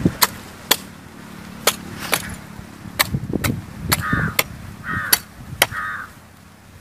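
Curved billhook blade chopping the husk off a tender green coconut: about ten sharp strikes, often in pairs about half a second apart. A bird calls three times in the second half.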